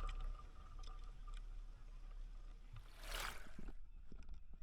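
Water lapping and gurgling around a small boat on a lake, with one brief, louder splashing rush about three seconds in.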